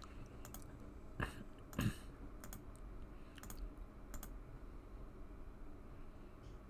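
Computer mouse clicks: a few sharp, spaced-out clicks, with two louder, duller knocks about one and two seconds in, over a low steady hum.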